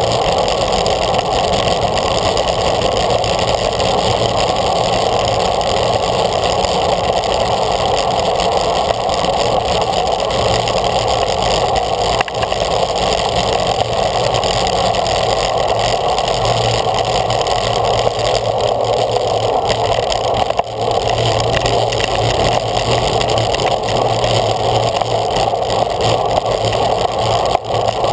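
Steady rush of wind buffeting a camera mounted on a racing road bike at speed, mixed with tyre noise on the road.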